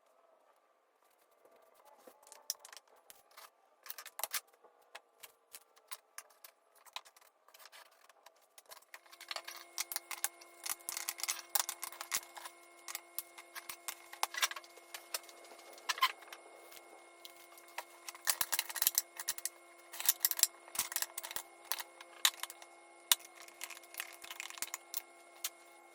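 Irregular light clicks and taps of small objects being handled. About nine seconds in, a steady electrical hum with several fixed tones starts and continues.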